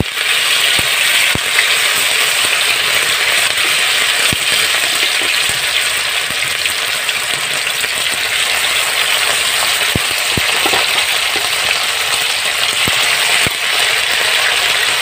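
Krill fritters (tortang alamang) frying in hot oil in a wok: a steady, loud sizzle, broken by occasional sharp clicks as more batter is spooned in.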